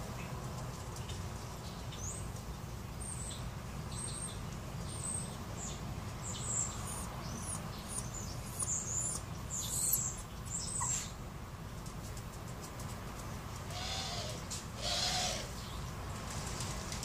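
Small birds chirping in short, high notes that repeat for several seconds over a steady low rumble, with two lower calls near the end.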